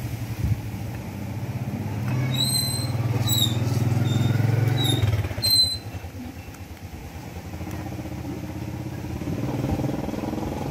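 A motorbike engine passing, its hum swelling for a few seconds and falling away about halfway through, with a few short high-pitched chirps over it, then a second, weaker swell near the end.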